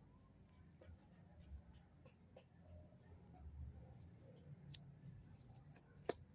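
Near silence: a faint low rumble with scattered light clicks and ticks, and a sharper click near the end.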